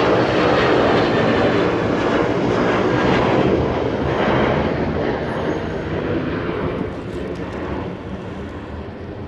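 Boeing 737 jet airliner flying overhead: a steady rushing engine noise that gradually fades over the last few seconds as it moves away.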